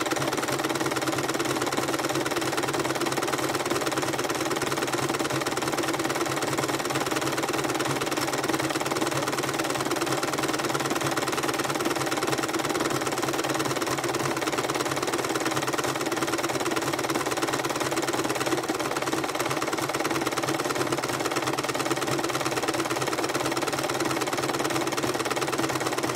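Electric sewing machine running steadily at speed, stitching through a coiled fabric-wrapped rope to join the coils of a rope bowl. It stops abruptly at the very end.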